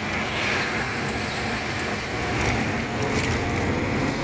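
Steady road traffic noise: car engines and tyres on a busy city road.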